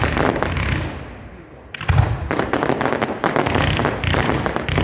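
Aerial fireworks going off: rapid crackling mixed with bangs. It eases briefly about a second in, then a loud bang just before two seconds in starts another dense round of crackling and bangs.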